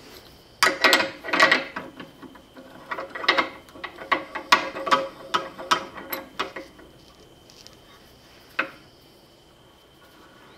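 Metal clinking and rattling from a brake-line flaring tool as its steel yoke is fitted over the clamped flaring bar and the feed screw is turned, setting up a double flare on steel brake line. The clatter stops about two-thirds of the way through, and one last click follows a couple of seconds later.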